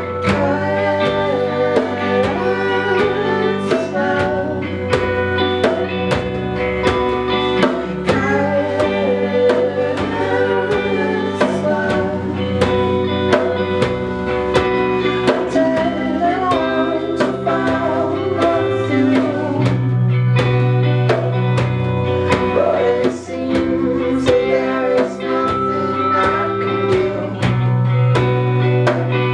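Live band playing a song: a singer over guitar and keyboard, with hand drums keeping a steady beat.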